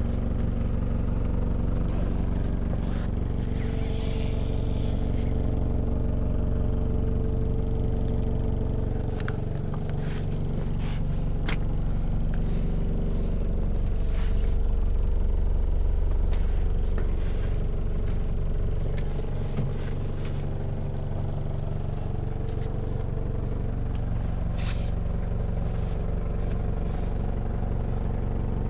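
Toyota HiAce 1KZ-TE four-cylinder turbo-diesel idling steadily, its note shifting for a stretch from about ten to nineteen seconds in. A brief hiss and a few light clicks come over the idle.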